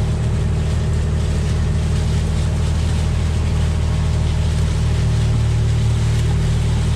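A vehicle's engine runs steadily with a low hum and road noise as it is driven slowly.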